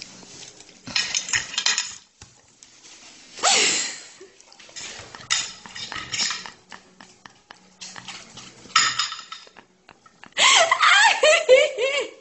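Cutlery clinking against dishes in scattered bursts, as food is eaten from a plate. Near the end a voice with a wavering pitch comes in over it for about two seconds.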